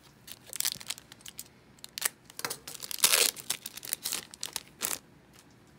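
Foil wrapper of a Garbage Pail Kids Chrome trading-card pack being torn open and crinkled, a string of sharp crackles and rips, the loudest about three seconds in.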